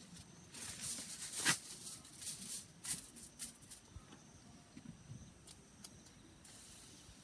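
Irregular crackling clicks and rustling, dense for the first few seconds and then thinning to a few scattered single clicks.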